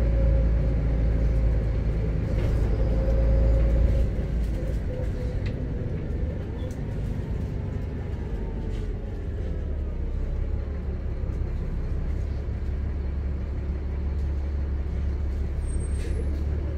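Volvo B7RLE single-decker bus's rear-mounted diesel engine and driveline heard from inside the saloon while driving: a heavy low rumble, loudest for the first four seconds, then easing and building a little again, with a few light clicks and rattles from the body.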